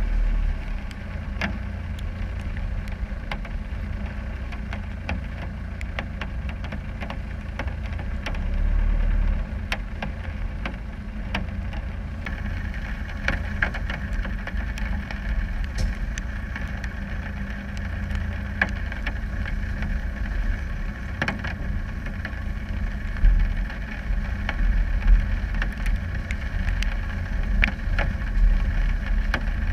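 Land Rover Discovery 300Tdi's 2.5-litre four-cylinder turbodiesel running as a steady low rumble while the truck crawls along a muddy track, with scattered sharp ticks throughout.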